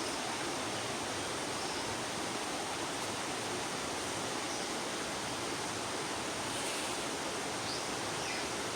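Steady, even rushing noise with no change in level, with a few faint, brief high chirps now and then.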